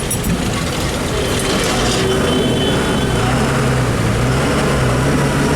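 A public bus running through heavy rain: a steady, slightly wavering low engine drone under a continuous wash of rain and road noise.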